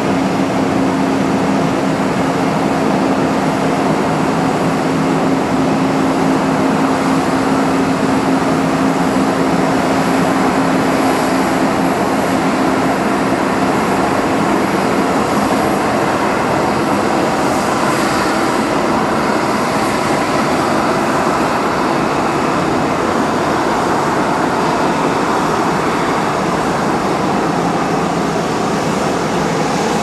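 Boeing 777's twin jet engines running at high thrust for takeoff: a loud, steady rushing noise with a low hum that fades out about halfway through.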